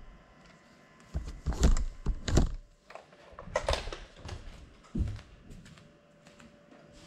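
Knocks and clatters of a small FPV drone being handled by hand right at its onboard camera, with a few louder thumps, then a person getting up and stepping away barefoot on a tile floor. The propellers are not spinning.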